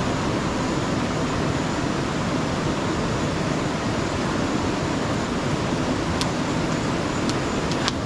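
Steady rushing of river water. A few faint clicks come near the end.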